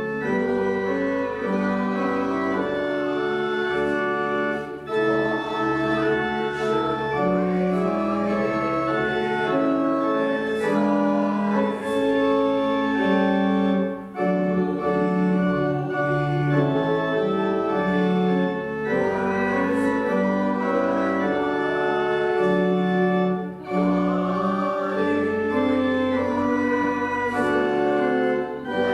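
Organ playing sustained chords in slow phrases, with short breaks between phrases about every nine or ten seconds.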